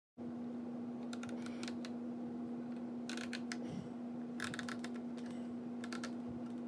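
Pencil drawing a line across the wooden frames of a fully framed model ship's hull: short clusters of scratchy clicks about a second apart, over a steady low hum.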